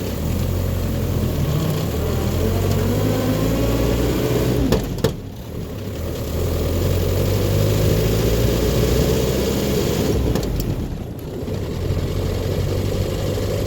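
Land Rover Series II 2.25-litre four-cylinder petrol engine pulling the truck through the gears, its revs rising, then dropping at a gear change about five seconds in and again around ten seconds. The freshly fitted Suffix A gearbox runs quietly underneath it.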